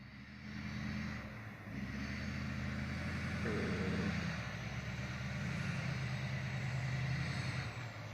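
A motor vehicle's engine running with a steady low hum. It grows louder about two seconds in and drops away near the end.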